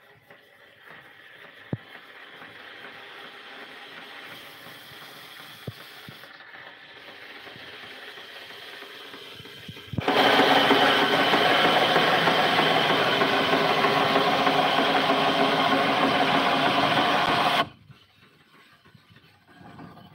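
Vertical band sawmill running, with a couple of sharp clicks, as a large log is fed past the blade. About halfway a much louder, steady sawing noise begins suddenly, the band blade cutting through the log, and it stops abruptly near the end.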